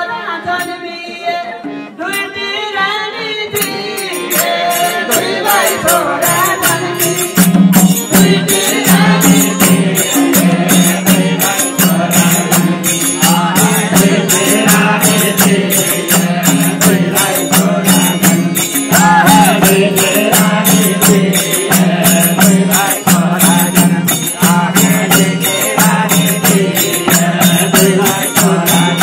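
Nepali devotional bhajan: a group of men singing with small hand cymbals, a madal drum and a harmonium. The cymbals come in about four seconds in and keep a fast, even beat, and the fuller accompaniment joins a few seconds later.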